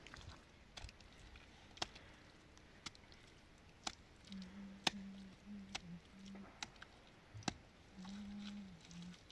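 A series of sharp taps or knocks, roughly one a second, with a faint low hum coming and going in between.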